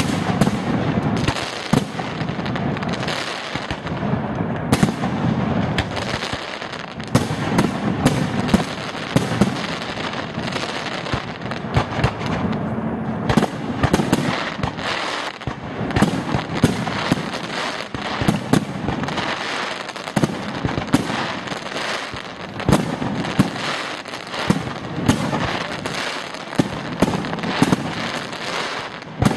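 Aerial firework shells bursting in a dense barrage, many sharp bangs a second over a constant rumble.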